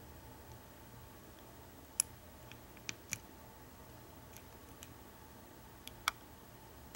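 A handful of faint, sharp clicks from a hook pick working the pin stack of an American 1100 padlock under a tension wrench, the clearest about two, three and six seconds in. This is single pin picking with the lock held in a false set, which a spool pin causes.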